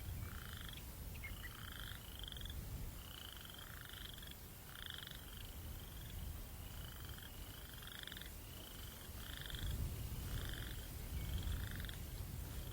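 Night ambience: short, pulsed animal calls repeating steadily, roughly one or two a second, over a low rumble of breeze that grows louder about ten seconds in.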